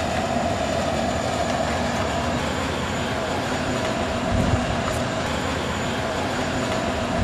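Steady vehicle rumble and hiss with a faint steady hum, and a slight low thump about four seconds in.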